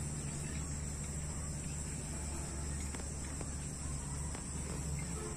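Insects droning in a steady high chorus over a low steady hum, with a few faint clicks.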